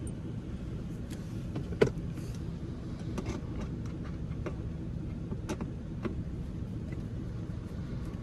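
Steady low rumble of a vehicle heard from inside the cabin, with a few small clicks and knocks, the loudest about two seconds in.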